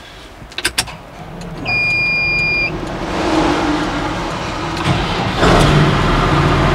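New Holland TM tractor's diesel engine cold-started: after a couple of clicks, a dash warning beep sounds for about a second, the starter cranks, and the engine catches about five seconds in and settles into a steady idle.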